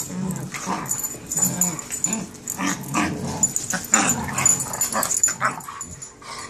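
A grown dog and a puppy play-wrestling, growling and vocalizing in quick, irregular bouts that die away shortly before the end.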